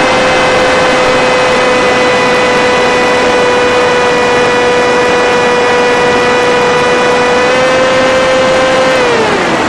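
Brushless electric motor and propeller of an FPV Skyfun RC plane whining at a steady pitch, rising a little and then dropping sharply near the end as the motor winds down.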